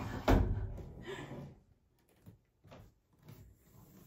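A sliding shutter or door running along its wooden track and knocking shut, followed by a few faint knocks.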